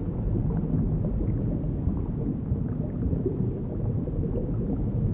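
Underwater ambience sound effect: a steady, muffled low rumble with faint bubbling.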